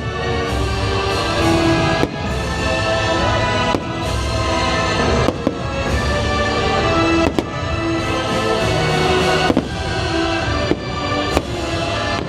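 Fireworks show: a Halloween soundtrack played loud over the park speakers, with sharp firework bursts cracking over it every second or two.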